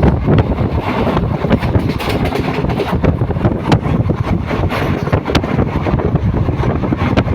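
Moving train running: a loud, steady rumble with scattered rattles and clicks, and wind buffeting the microphone.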